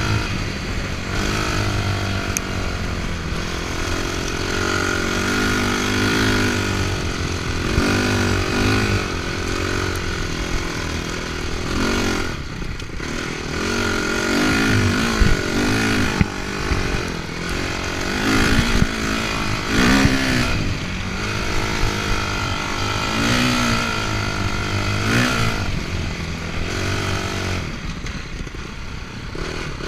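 Enduro dirt bike's engine heard from on board while riding, the revs rising and falling over and over as the throttle is worked, easing off briefly a couple of times.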